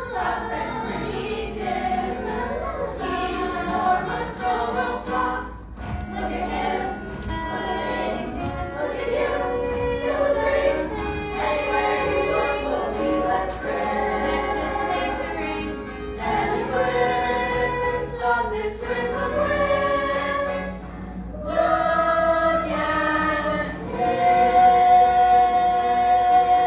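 A musical-theatre chorus, with several voices singing together, carries on a song number and ends on a long held note near the end.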